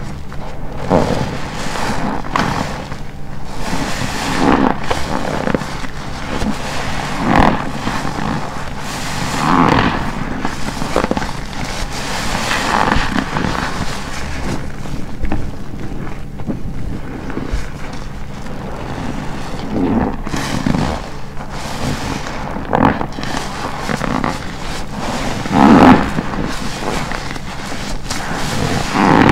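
Black car wash sponge full of shampoo being squeezed and released over and over, a wet squishing swell every two to three seconds, the loudest near the end.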